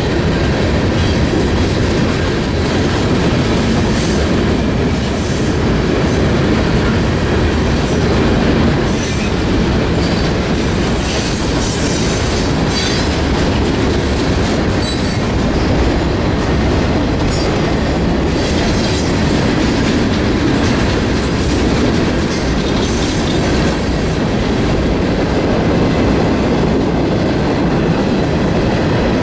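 CSX freight train's cars rolling steadily past a grade crossing: a continuous rumble and clatter of steel wheels on the rails, with high-pitched wheel squeal flaring up about ten to thirteen seconds in and again around nineteen seconds.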